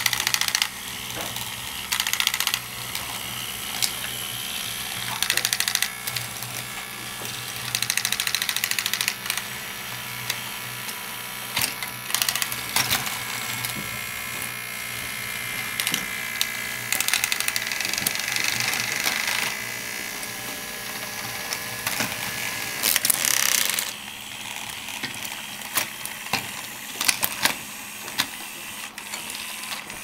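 Small electric motors and plastic gears of a remote-control toy tank whining as it drives, louder in repeated short bursts every few seconds, with scattered light clicks and clatter of wooden craft sticks being knocked over.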